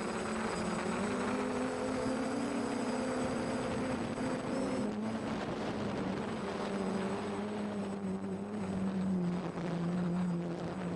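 F450 quadcopter's four brushless motors (Turnigy 2830-11 1000KV) and propellers humming in flight. The pitch rises slightly, then drops about five seconds in and stays lower.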